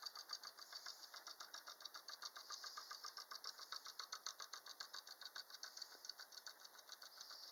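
Wooden woodpecker toy bouncing down its pole on a wire spring, its beak pecking the pole in a rapid, even run of light taps, about ten a second.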